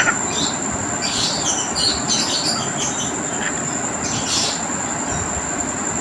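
Cockatiel chirping in short high bursts about a second in and again past the middle, over a loud, steady rushing noise with a thin constant high whine.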